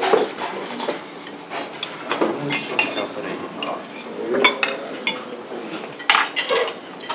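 Cutlery clinking and scraping against plates and dishes during a meal: many short, irregular clinks.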